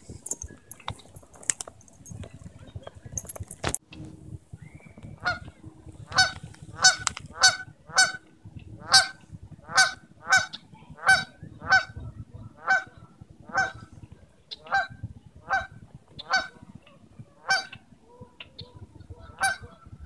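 Juvenile swan honking: a long series of short honks, more than a dozen at about one a second, starting about five seconds in.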